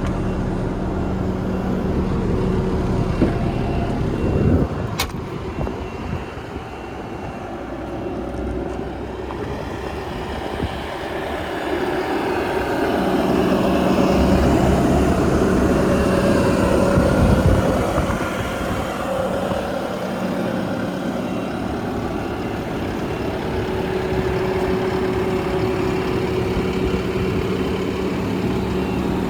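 Bobcat S740 skid steer loader's diesel engine running, steady at first, then working harder and louder for several seconds in the middle before settling back to a steady run. There is a single sharp click about five seconds in.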